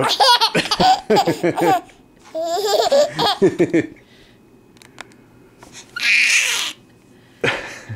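A baby laughing in two spells of quick, high-pitched bursts over the first four seconds. A short breathy sound follows about six seconds in, and another near the end.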